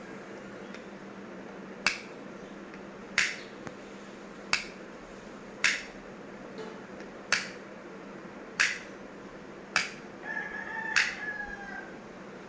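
Hi-Fi modular rocker switch being flicked on and off by finger: eight sharp clicks, about one to one and a half seconds apart. Near the end a drawn-out call sounds in the background.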